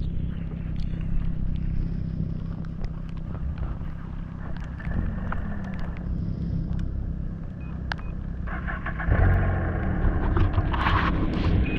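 Snowmobile engine and track running at a steady low speed, heard from on the moving sled, getting louder about nine seconds in.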